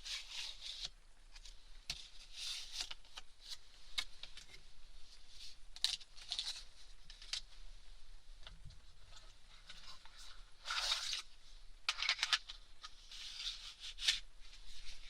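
Close-miked handling sounds of ear-cleaning tools being got ready: rustling and crinkling, like packaging being torn open, with scattered sharp clicks of small objects being picked up and set down. The rustling is densest about 11 and 12 seconds in.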